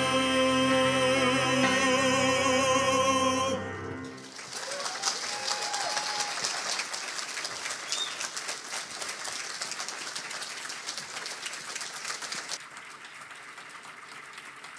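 Two men's voices hold the song's final note with vibrato over a sustained piano chord, which ends about three and a half seconds in. Then the congregation applauds, more quietly for the last couple of seconds.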